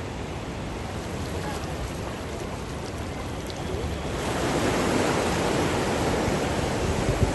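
Floodwater of a swollen river rushing in a steady roar-like rush, growing louder about four seconds in.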